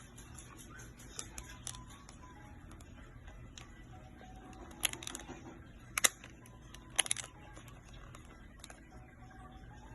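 Light clicking from a Casio TQ-131 travel alarm clock being handled, then three sharper plastic clicks about a second apart near the middle.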